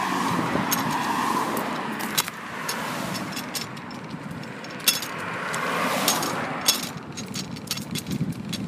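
Cars passing on the road beside the sidewalk: a broad tyre-and-engine rush that swells and fades twice, near the start and again about six seconds in. Short sharp clicks and taps are scattered throughout.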